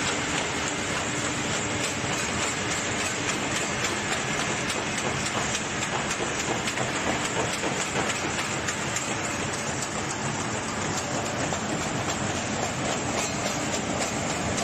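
Automatic carton folder-gluer running with corrugated cartons going through: a steady mechanical clatter with many rapid fine clicks.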